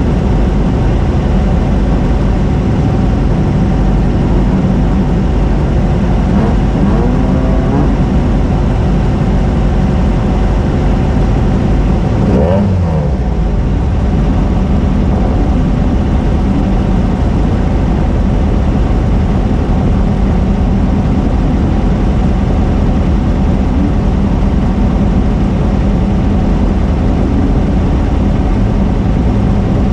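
Off-road race car running at speed: a loud, steady engine and drivetrain rumble, with the engine pitch briefly sliding around seven seconds in and again about twelve seconds in.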